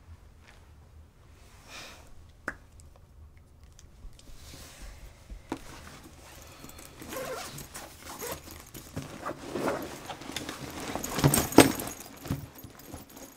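Handling sounds over a low room hum: rustling and light knocks that grow busier, then a cluster of loud thumps and rustles about eleven seconds in as bundles of banded cash are set down on a table.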